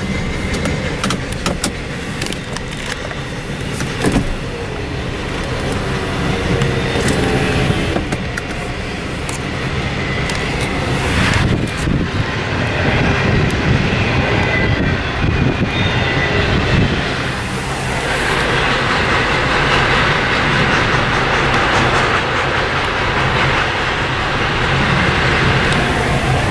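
Double-stack container freight train rolling past, a steady rumble with irregular clicks and clatter of wheels on the rails.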